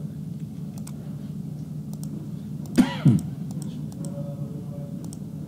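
A few soft computer-mouse clicks over a steady low room hum. About three seconds in, a person clears their throat once, briefly and loudly, in two quick parts.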